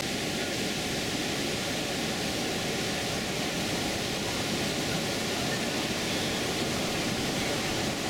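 Niagara River rapids rushing just above the American Falls: a steady, even sound of white water.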